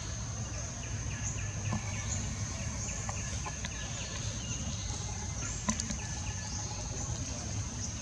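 Forest ambience: a steady high insect drone, with a quick repeated chirp, about four a second, through the first half and a couple of sharp clicks, over a low rumble.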